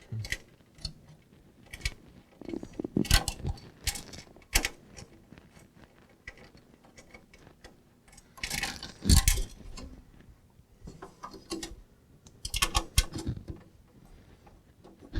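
Scattered clicks, knocks and light metallic clatter of computer parts and screws being handled during a PC teardown, with louder clusters of knocks about three seconds in, around nine seconds and around thirteen seconds.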